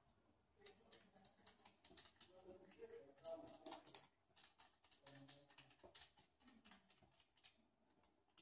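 Faint, irregular small clicks and taps of a hand-held DSLR-style camera with a Sigma 17-50 mm zoom lens being handled and turned, fingers on the body, buttons and lens barrel.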